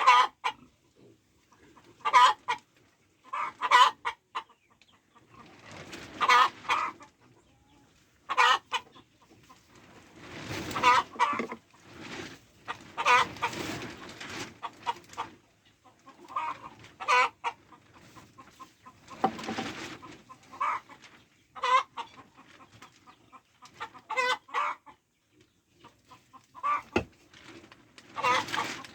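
Chickens clucking, with short calls coming every second or two and a few longer, drawn-out ones in between.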